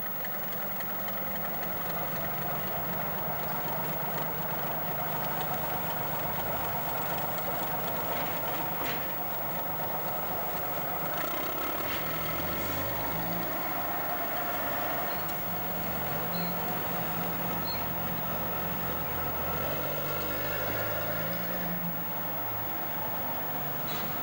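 Diesel engine of a RENFE Series 301 shunting locomotive running, steady for the first ten seconds or so, then its note stepping up and down as the locomotive works.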